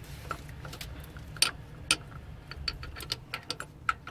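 Hand wrench clicking and clinking against a metal fitting in the engine bay: a few sharp metallic clicks, then a quicker run of light clicks, about six a second, in the second half.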